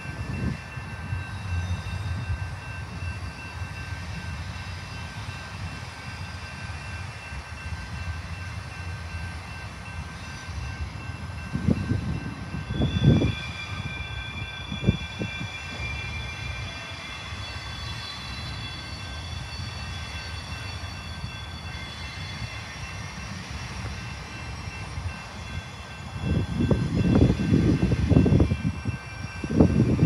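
Double-stack container freight cars rolling past, their wheels making a steady rumble on the rails, with thin steady high tones above it. Louder low rumbling bursts come about twelve seconds in and again near the end.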